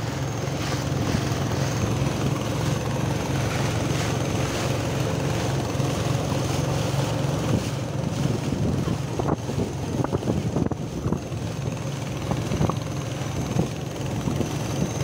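Small boat's outboard motor running steadily at cruising speed, heard from aboard, with a few short splashes against the hull in the second half.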